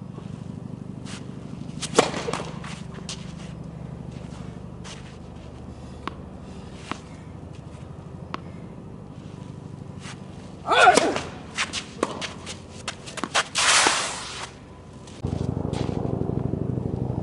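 Sounds of a tennis rally: sharp knocks of the ball off rackets and court, the loudest about two seconds in, then a flurry of squeaks, scuffs and quick knocks from play between about eleven and fourteen seconds. Under it a steady hum that jumps louder near the end.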